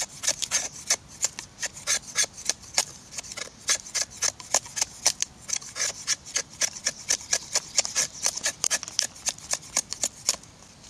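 A knife shaving thin curls of wood from a split branch for tinder, in quick repeated scraping strokes, several a second, that stop shortly before the end.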